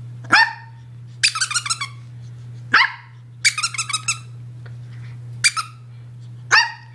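A puppy giving short, sharp barks that drop in pitch, three times, with quick runs of high squeaks from a squeaky toy in between.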